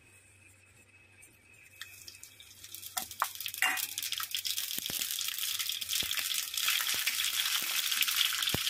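Whole spices (mustard seeds, fenugreek seeds, cumin, fennel, asafoetida) dropped into hot oil in a small pan for a tadka, sizzling with scattered crackles. The sizzle starts about two seconds in and builds to a steady hiss.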